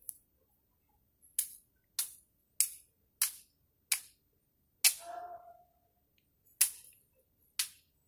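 A wooden stick striking hard, nine sharp cracking knocks about half a second to a second apart, with a longer pause after about five seconds.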